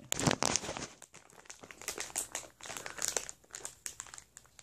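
Crinkling of a plastic dog-tag blind pack being handled and pulled at while trying to open it: irregular crackles, louder in the first second and softer after.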